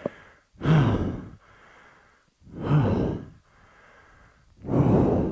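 A downed motorcyclist pinned under his bike gives three long, groaning breaths, each falling in pitch. He is winded and hurting after slamming hard onto his back in the crash.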